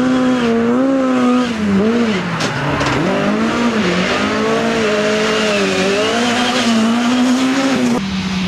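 Rally car engine revving hard, its pitch climbing and dropping again and again as the driver shifts gears and lifts off the throttle. Near the end it cuts abruptly to a steadier engine note.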